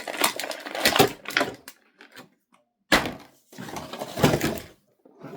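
Plastic handling noises from a toy wrestling action figure being worked at to get its jacket off: scraping and rustling in bursts, with a sharp click about three seconds in.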